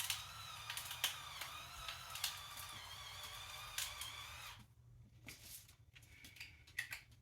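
Faint clicks and taps from hands seasoning and handling breaded chicken, over a steady, slightly wavering high whine that cuts off about four and a half seconds in. After that only a few scattered faint clicks remain.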